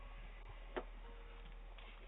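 Faint steady hum and background noise picked up by a doorbell camera's microphone, with one sharp click about three-quarters of a second in.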